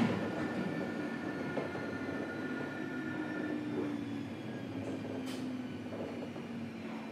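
Onboard sound of a JR 103 series electric train car (KuMoHa 103-1512): a steady running rumble with faint whines and a low hum that dips slightly in pitch, growing gradually quieter toward the end. There is a single knock right at the start.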